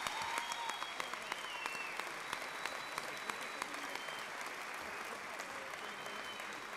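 Audience applauding: many hands clapping, easing off slightly near the end.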